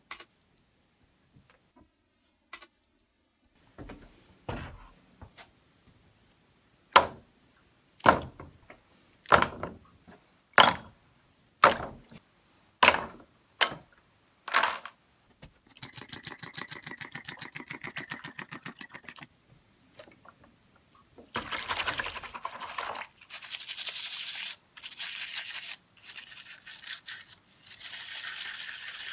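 Workshop handwork on the drill's parts: a few faint clicks, then a run of about eight sharp knocks roughly a second apart. Next comes a few seconds of fast, even scrubbing strokes, then long bursts of loud rasping like sanding or brushing.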